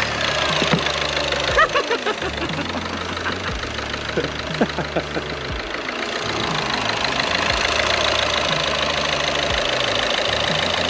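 Four-cylinder common-rail TDI diesel idling with its usual diesel clatter, having just caught after cranking on a freshly fitted injector with the fuel system bled. It runs evenly, described as running like new.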